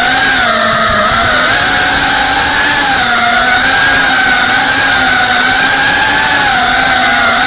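FPV quadcopter's electric motors and propellers whining steadily, the pitch wavering slightly up and down with the throttle, heard through the drone's onboard action camera.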